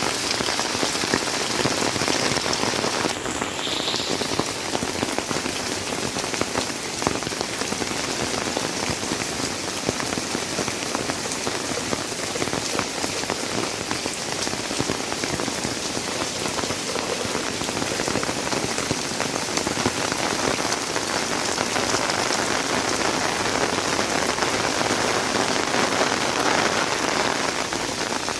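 Heavy rain falling steadily, a dense patter of drops hitting surfaces.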